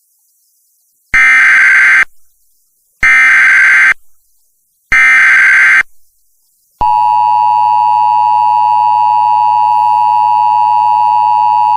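Emergency Alert System activation on FM radio: three short, harsh bursts of SAME digital header data, about two seconds apart, then about seven seconds in the steady two-tone EAS attention signal starts and holds. The alert announces a flash flood warning.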